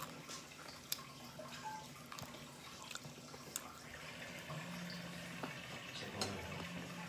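Close-up eating sounds: wet chewing and small lip-smacking clicks as grilled chicken is eaten off the bone by hand, with a scattered handful of sharp clicks.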